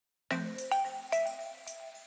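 Background music of bright, ringing struck notes, a new note about every half second, starting about a third of a second in.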